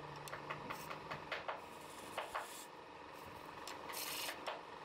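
Woodturning on a lathe: a tool scraping and cutting the spinning wood with a steady rasp. A run of short, sharp scratches comes in the first half, and a longer hiss about four seconds in.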